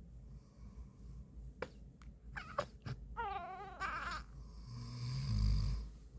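A man snoring, with one long snore near the end. Between snores an infant gives two high-pitched cooing vocalizations with a wavering pitch, and there are a few soft clicks.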